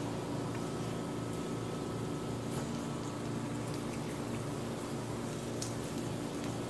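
Vegetables sizzling steadily on a hot grill pan over a low steady hum, with a few faint clicks.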